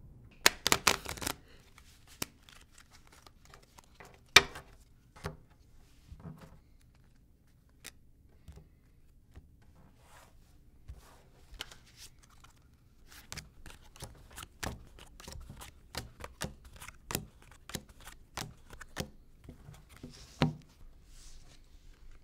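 Deck of playing cards being shuffled and dealt onto a table. A quick burst of riffling comes near the start and a sharp slap about four seconds in. Later a long run of quick card flicks and slaps ends in one louder slap.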